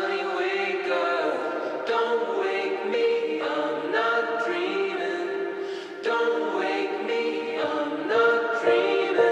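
Background music: a choir singing slow, held notes without accompaniment, changing pitch about once a second.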